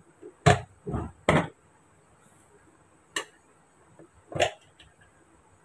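A few short clicks and knocks of a spoon and spice containers being handled: three close together in the first second and a half, then two more spaced apart.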